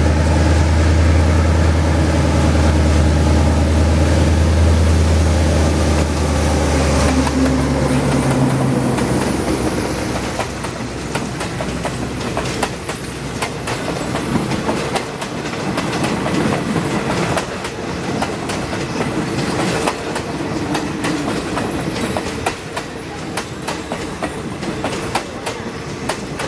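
Alsthom diesel-electric locomotive rolling past with its engine's low drone as it slows into the station. After about eight seconds the drone fades and the passenger coaches follow, their wheels clacking over the rail joints.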